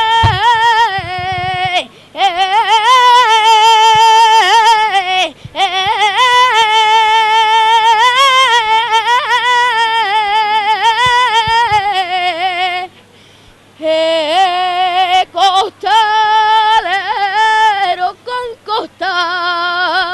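A boy singing a saeta, the unaccompanied flamenco-style Holy Week devotional song, in long high phrases with heavy wavering ornaments on each note. He breaks off briefly for breath a few times, with the longest pause about two thirds of the way through.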